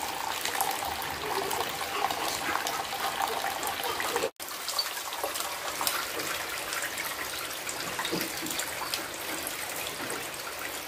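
Tap water running in a thin steady stream into a plastic basin of dishes, splashing over the bowls. The sound drops out briefly about four seconds in.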